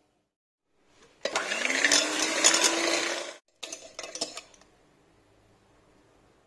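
Electric hand mixer whipping cream in a glass bowl. The motor starts about a second in, rising slightly in pitch as it gets up to speed, and cuts off abruptly about two seconds later. A shorter burst with a few clicks follows.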